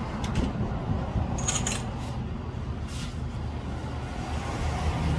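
A few short, light metal clinks from parts being handled at a metal lathe, over a steady low hum.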